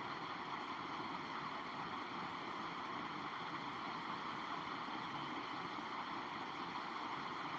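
Steady, even rushing hiss with no breaks or changes.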